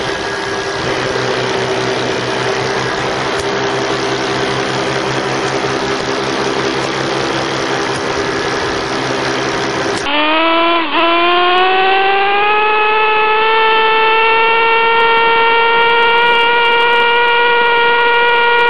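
Engine of a small off-road vehicle running at a steady speed while riding. About ten seconds in it changes suddenly to a higher engine note that dips briefly, then rises as it speeds up and holds steady.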